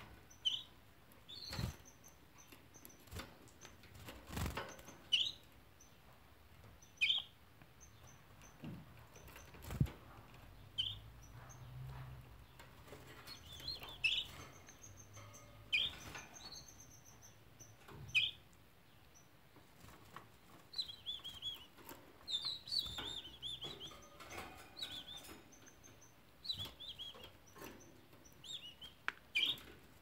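Canaries giving short, high chirps every second or two, with quicker strings of chirps in the second half. Scattered knocks and taps sound among them.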